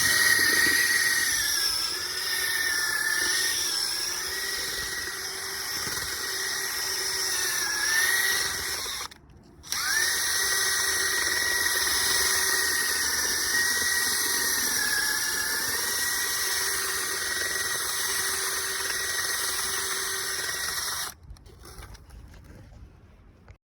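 Electric drill motor running in long stretches, its whine sagging and recovering as the load changes. It cuts out briefly about nine seconds in, starts again, and stops near the end.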